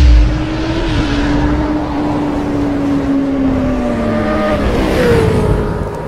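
Intro sound effect of a revving motorcycle engine. It opens with a deep boom, holds a steady pitch, then drops away in pitch over the last couple of seconds.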